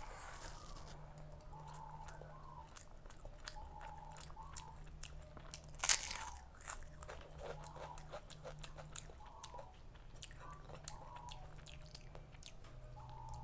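Close-up eating sounds: wet chewing and small mouth clicks, with one loud crunchy bite about six seconds in.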